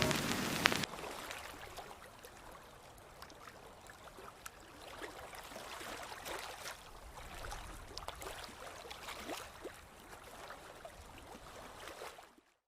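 Faint trickling water with scattered small drips.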